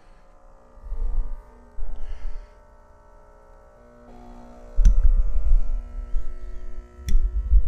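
Nespresso Vertuo Plus capsule machine starting its brew cycle: a steady hum of several tones that shifts about four seconds in, with low thumps and two sharp clicks.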